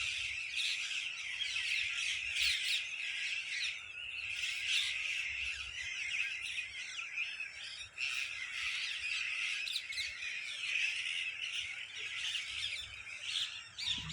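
A flock of parrots squawking and chattering, many shrill calls overlapping without a break.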